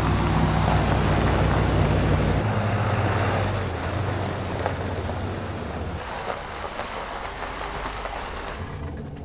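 Pickup truck engines running, a steady low rumble with noise above it. The sound changes abruptly about two and a half and six seconds in, then thins out near the end.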